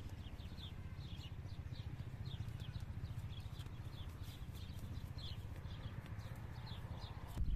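Small birds chirping: short, quick falling chirps a few times a second, over a steady low rumble.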